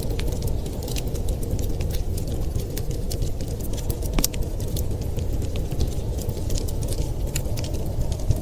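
Wood fire crackling in a fireplace, with frequent small sharp pops and one louder pop about four seconds in, over a steady low rumble of storm wind.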